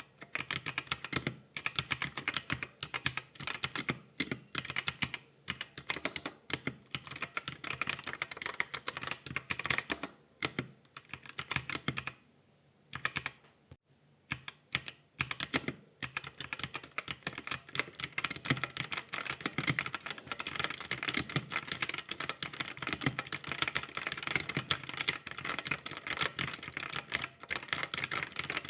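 Computer keyboard being typed on: quick, irregular key clicks, with a brief pause just under halfway and faster, nearly continuous typing through the second half.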